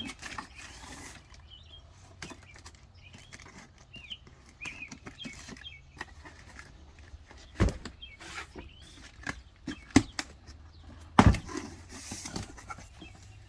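Hammock and its packaging being handled: soft rustling with three sharp knocks, the last the loudest, while small birds chirp in the background.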